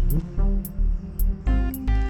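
Background music: a steady beat of about two kicks a second with ticking hi-hats, and plucked guitar-like notes coming in about one and a half seconds in.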